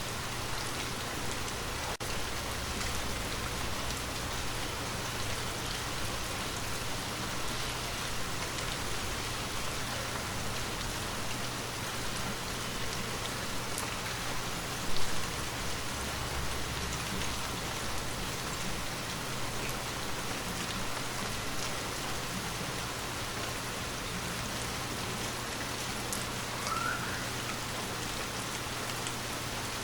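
Steady rain falling on a surface: an even hiss with scattered drop ticks, and one sharp, louder tap about halfway through.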